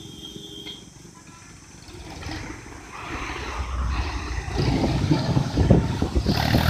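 Cars passing close by on the road. Their engine and tyre noise swells from about two seconds in as two cars go past.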